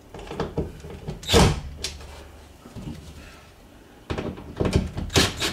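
Cordless drill driving screws into the wall, with knocks and clatter from the metal wall-hanging frame against the wall. A loud knock comes about a second and a half in, and a quick run of clattering follows near the end.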